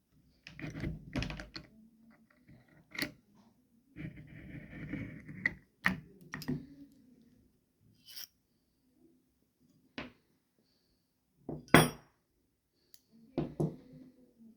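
Metal parts of a Brno Mauser-pattern rifle being handled and worked open: a string of separate clicks and clacks with a scraping rattle about four seconds in, and the loudest clack near the end.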